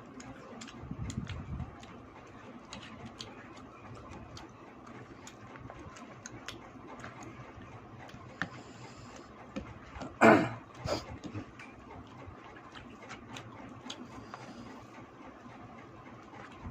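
Eating sounds: scattered small clicks and smacks of chewing and of eating from a plate, with one much louder short sound about ten seconds in and a smaller one just after.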